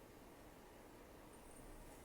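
Near silence in the pause between an elderly cat's snores, with the faint hiss of its next rough nasal breath starting near the end.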